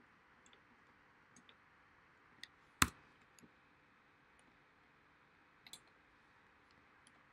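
Scattered quiet clicks of a computer mouse and keyboard, with one louder click about three seconds in and a quick double click near six seconds.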